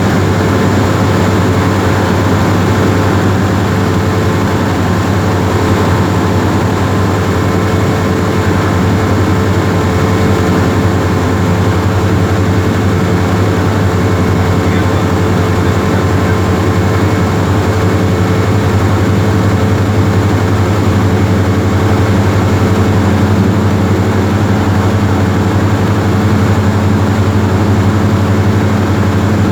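Cessna 172R's four-cylinder Lycoming engine and propeller running at a steady power setting, a loud, even drone heard inside the cockpit.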